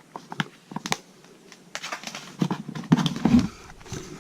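Hands handling packaged products and packaging: scattered light taps and clicks with some rustling, and a louder cluster of knocks about three seconds in.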